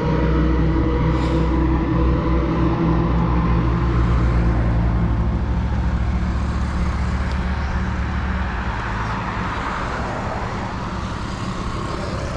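Motor vehicle running on the road: a steady low engine hum with road and wind noise, the hum dropping away about two-thirds of the way through while the road noise carries on.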